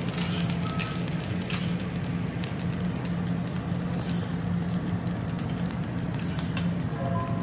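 Fried rice sizzling on a steel teppanyaki griddle as metal spatulas scrape across the plate and tap, scooping it into bowls. A steady low hum runs underneath.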